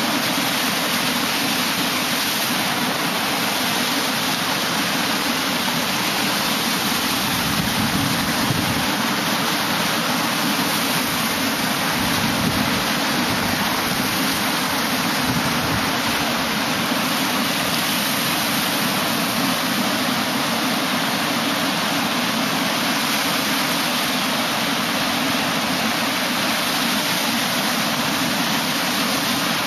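Ocean surf breaking and washing in over rocks and sand, a steady rushing of foaming water with no distinct pauses between waves.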